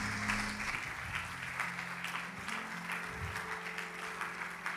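Congregation clapping and applauding, with soft background music holding low sustained notes underneath.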